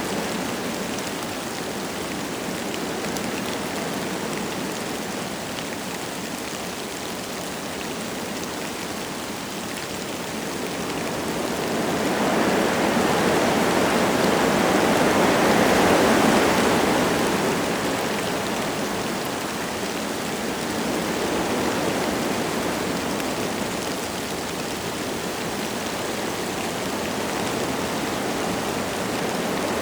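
Wind blowing through forest trees with light rain falling, a steady rushing that swells into a louder gust about halfway through and then dies back down.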